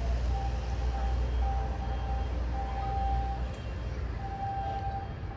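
Jet airliner taxiing at a distance: a steady low rumble and hiss, heavy at the bottom with wind on the microphone that eases about halfway through. A faint high tone sounds on and off about once a second.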